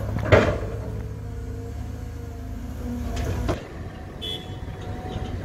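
Cat 320 hydraulic excavator's diesel engine running under load while the bucket digs into soil and rock, with a loud scrape and crash of earth and stones about a third of a second in and another strike near three seconds. About three and a half seconds in the sound drops abruptly to a quieter engine with a short clank.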